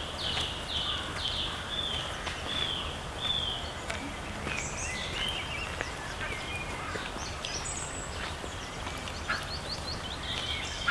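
Whooper swan cygnets peeping: a run of short, high, falling peeps about twice a second for the first few seconds, then scattered higher chirps.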